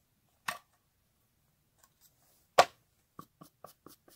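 Thin wooden boards knocking and clacking against each other as they are handled and stacked: a click about half a second in, one loud sharp knock a little past halfway, then a quick run of lighter taps, about four a second.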